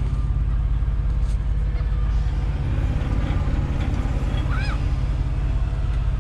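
Semi truck's diesel engine idling with a steady low rumble. A single short rising-and-falling chirp sounds about four and a half seconds in.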